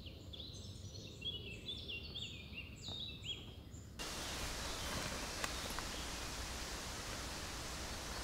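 Small birds singing in the background, many short high chirps overlapping in quick succession. About four seconds in, this gives way to a steady even outdoor hiss with a few faint clicks and rustles.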